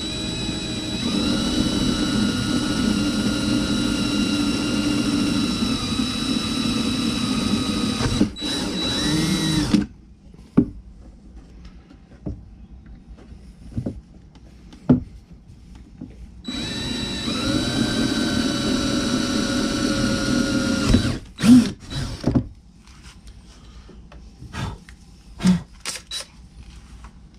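DeWalt cordless drill drilling screw holes with a 9/64-inch bit, running twice with a steady motor whine, the first run about ten seconds and the second about five. A few sharp knocks and lighter clicks follow.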